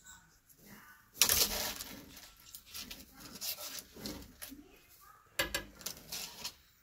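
A lace monitor seizing a mouse from metal feeding tongs. There is a loud sudden strike about a second in that trails off, then clicking and scraping of tongs, jaws and branches, and another sharp knock about five and a half seconds in.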